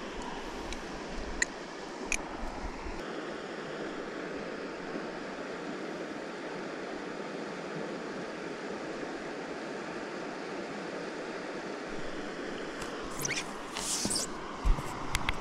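Steady wash of small waves lapping on the water, with a couple of sharp clicks about a second and two seconds in. Near the end, rustling and scraping of handled gear and one knock.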